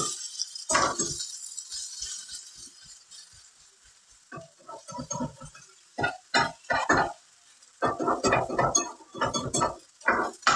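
Cooking utensils clinking and scraping against a pan in short bursts, with a hiss of frying fading out over the first couple of seconds.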